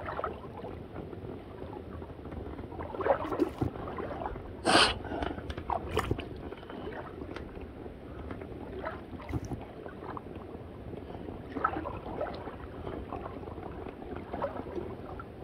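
Water sloshing and gurgling, with scattered short splashes and small knocks; the loudest is a sharp splash-like noise about five seconds in.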